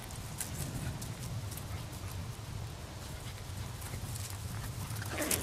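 Australian terrier puppies playing rough on grass: scuffling and small clicks over a steady low rumble, with a short cry from one of them about five seconds in.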